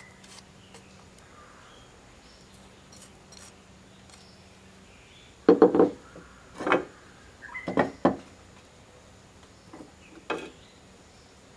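Clay pots and lids knocking and scraping together as they are handled, in a cluster of short clatters about halfway through and one more knock near the end.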